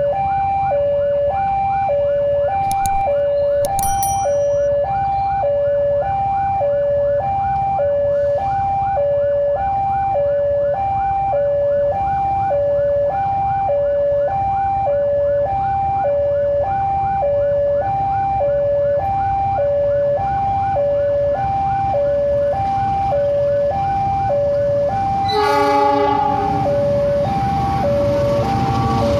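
An ambulance siren and a railway crossing warning alarm sound together. A loud two-tone hi-lo pattern switches about once a second over a faster repeating warble. Near the end a horn, most likely the approaching train's, sounds briefly for about a second.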